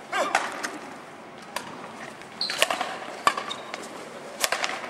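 Badminton doubles rally: a string of sharp racket strikes on the shuttlecock, about one a second, with a brief shoe squeak on the court floor near the middle.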